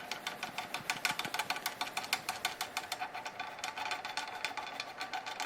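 Rapid, irregular metallic clicking and tapping, several clicks a second, from hand work on the parts of a rivet machine being taken apart.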